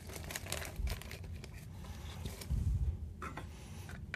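Clear plastic parts bag crinkling as it is handled, with light knocks of kit parts set down on a wooden tabletop and a dull bump about two and a half seconds in.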